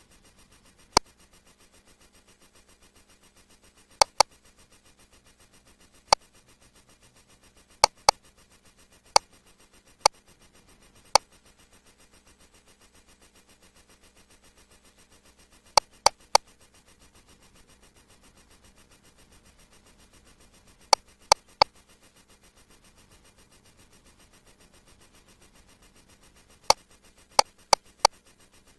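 Quiet background with about twenty short, sharp clicks at irregular spacing, some single and some in quick runs of two or three.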